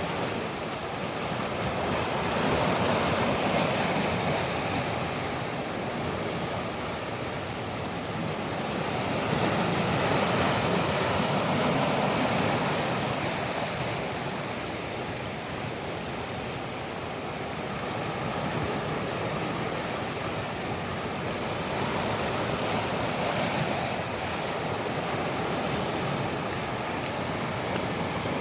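Ocean waves surging and washing on the shore, swelling and easing every several seconds, with wind blowing across them.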